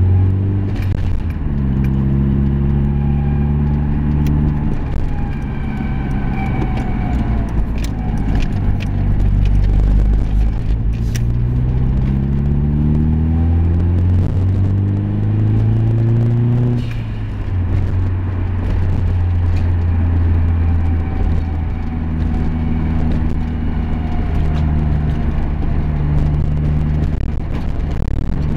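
A vehicle engine under way, running steadily, then rising in pitch as it accelerates, with a sudden drop about two-thirds of the way in like a gear change. A fainter whine above it rises and falls with the engine speed.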